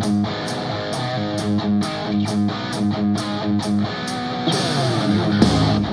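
Guitar-driven rock music with a steady beat, played in stereo through a pair of DOSS SoundBox Pro Bluetooth speakers. About four and a half seconds in, a guitar slides downward and the song moves into a heavier section with more bass.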